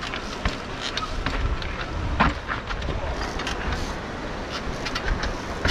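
Trials bicycle hopping and picking its way over river rocks: scattered knocks and clicks of tyres, rims and frame on stone, with one louder thump about two seconds in, over a steady rush of background noise.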